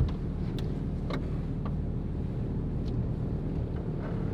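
Jeep rolling slowly along a rough dirt trail, heard from inside the cabin: a steady low rumble of engine and tyres. A loud knock comes right at the start, and a few light clicks and rattles follow.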